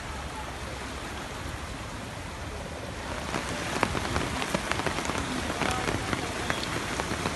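Heavy monsoon rain: an even rush of water, then from about three seconds in many separate drops hitting close by on a surface, like rain on a plastic-covered umbrella.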